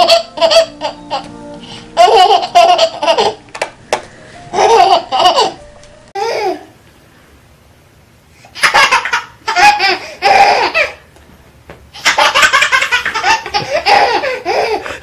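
A baby laughing in repeated bursts of giggles and belly laughs, with a quiet stretch about halfway through.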